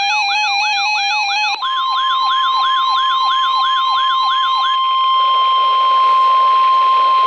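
Weather alert radios (Radioshack 12-993, Radioshack 12-382 and Midland WR-100) sounding their warning alarms together: a siren sweep falling in pitch about three times a second and a two-tone warble. About a second and a half in, the warble gives way to the steady 1050 Hz NOAA Weather Radio warning tone, which carries on over heavy radio static after the siren sweep stops about five seconds in.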